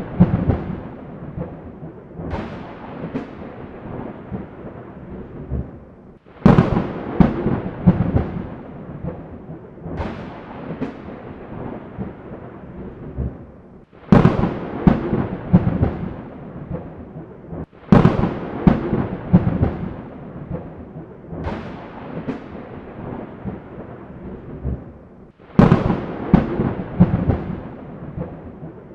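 Thunder: a sharp crack every four seconds or so, each rolling into a long rumble that runs into the next, seven claps in all.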